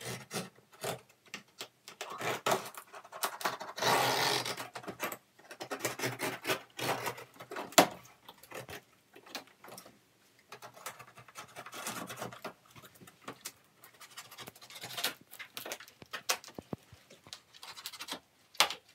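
Large cardboard box being opened: a blade scraping and cutting along the packing tape, with cardboard flaps scraping and knocking, and many small scratches and clicks. A longer stretch of scraping about four seconds in, and one sharp knock just before eight seconds.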